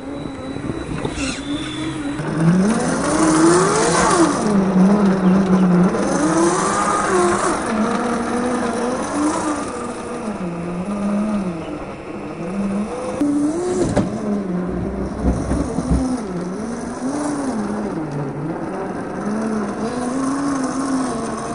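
Electric motor and gearbox of an RC rock crawler whining as it crawls over rock, the pitch rising and falling as the throttle is worked, with a sharp knock about fourteen seconds in.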